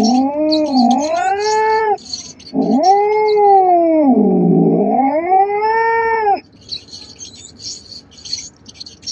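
A cat yowling in two long, wavering caterwauls, the second longer and sagging low in the middle before rising again. After the second call, about six seconds in, come short, faint, hissy bursts.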